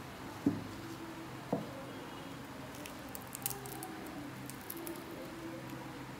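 Faint clicks and scrapes of metal tweezers picking packed debris out from under a thick, overgrown toenail, clustered a few seconds in. Two soft thumps from handling come in the first two seconds, over a steady low hum.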